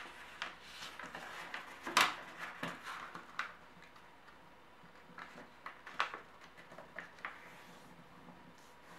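Origami paper being handled and folded by hand: soft rustles and crinkles with sharper creasing sounds, the sharpest about two seconds in and again about six seconds in, growing sparse near the end.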